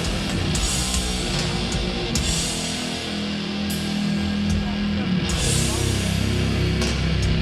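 Doom metal band playing live: heavily distorted guitars hold long, low chords over drums, with cymbal crashes every second or two.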